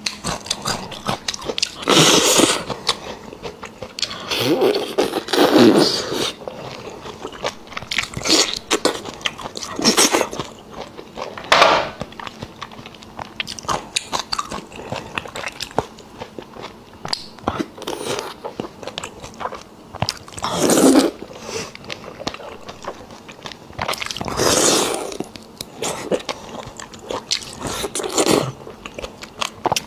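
Close-miked eating sounds of beef bone marrow: wet sucking and slurping of the soft marrow out of bone sections, with chewing and mouth clicks between. Louder sucks come every few seconds.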